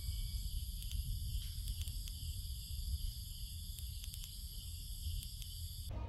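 Steady chorus of insects at several high pitches, over a constant low rumble.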